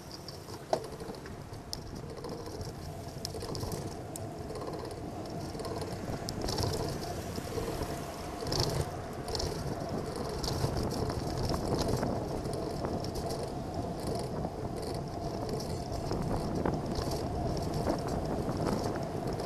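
Riding a bicycle along a city street, heard from a camera mounted on the bike: a steady rumble of wind and tyre noise, with light rattles and clicks over the road surface and traffic alongside.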